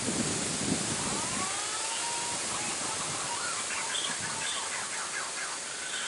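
Wind rumbling on the microphone for about the first second and a half, then wild birds calling in the trees: a couple of whistled glides, followed by a run of quick chirps and a thin, high repeated note near the end.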